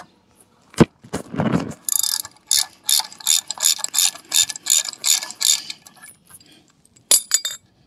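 Ratchet wrench with a 27 mm socket clicking in quick back-and-forth strokes, about three to four a second, as it backs the propeller nut off an outboard's prop shaft. A single sharp click comes about a second in, with a few more strokes near the end.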